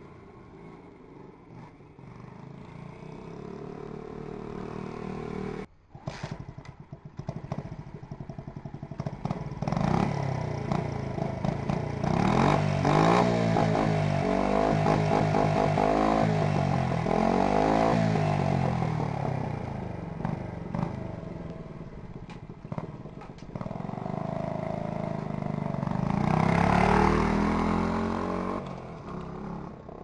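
Honda Monkey's single-cylinder four-stroke engine revving through its exhaust, the pitch climbing and falling several times in quick succession through the middle, with another long rise and fall near the end.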